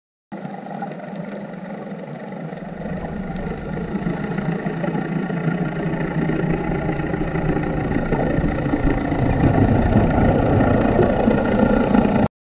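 Low, muffled underwater rumble recorded by a dive camera, growing steadily louder and cutting off abruptly near the end.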